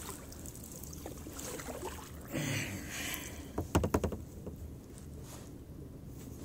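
Kayak paddling on still water, the paddle blades dipping and dripping, with a quick cluster of hard knocks just under four seconds in.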